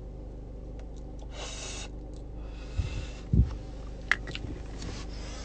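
A man breathing out smoke in two breathy puffs, with two dull thumps a little after the second puff and a few small clicks, over a steady low hum.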